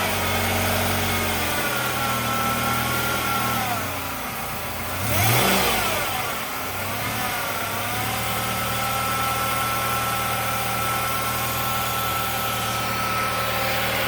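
The four-cylinder engine of a 2015 Nissan NV200 running steadily under light throttle, its pitch dipping and climbing again about five seconds in with a brief louder rush, while the van's front end is run to find a noise that appears when turning.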